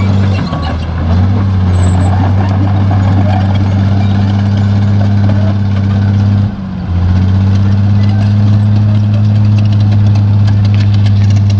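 Hino dump truck's diesel engine running with a steady low drone that dips briefly twice, about half a second in and again about two-thirds of the way through. A last reversing beep sounds just after the start.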